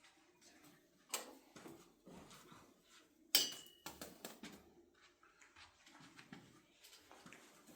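Light clicks and taps of small hard objects being handled, with one sharper clink about three seconds in that rings briefly.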